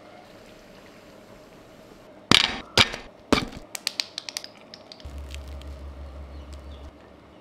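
Faint hiss of bread pakoras frying in oil, then three sharp knocks about half a second apart and a run of quick crisp crackles as the fried gram-flour batter crust is broken and torn open.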